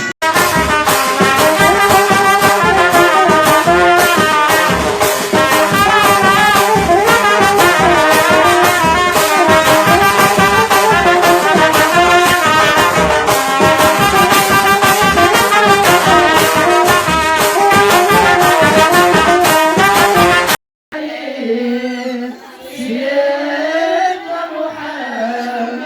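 Loud traditional wedding music: wind instruments playing a melody over fast, steady drumming. About 21 seconds in, it cuts off abruptly, and after a brief silence a woman sings alone with a gliding melody.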